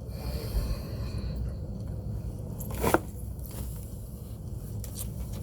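Eating sounds from a bowl of pho: quiet chewing and handling of the food, with one sharp click or knock about three seconds in, over a steady low background hum.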